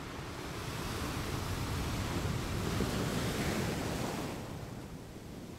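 Sea waves washing onto the shore, with wind: a rushing swell that builds over the first few seconds and fades away about four and a half seconds in.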